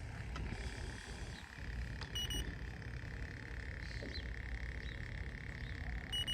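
Two short electronic beeps, about four seconds apart, over a steady high-pitched drone and low rumble.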